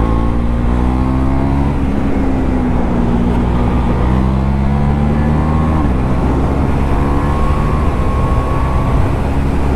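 KTM Duke 390's single-cylinder engine with an aftermarket Akrapovič exhaust accelerating hard, its note rising steadily in pitch. Two quick-shifter upshifts, about two seconds in and again near six seconds, each drop the pitch abruptly before it climbs again.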